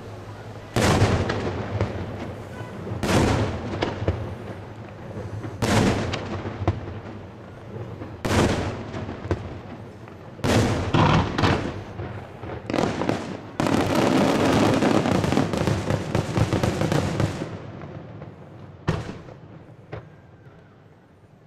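Daytime fireworks: aerial shells bursting in loud single bangs every two to three seconds, then a dense rapid barrage of bangs for about four seconds past the middle, thinning to a couple of fainter reports near the end.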